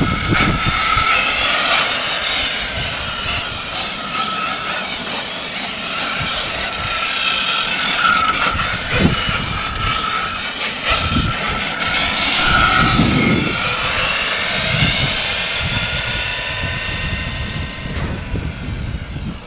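1:6 scale RC car's 2250KV brushless electric motor and drivetrain whining at speed on a 4S LiPo, the pitch rising and falling with the throttle.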